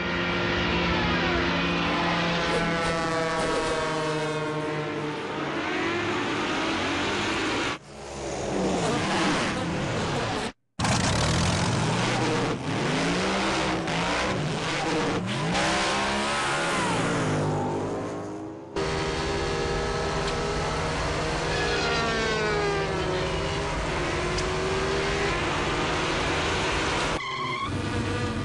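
Cartoon sound effects of several flies buzzing, their wing hum gliding up and down in pitch like revving engines, with a brief silent break about ten seconds in.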